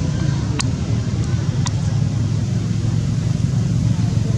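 Steady low engine rumble, with two sharp clicks over it early in the first half.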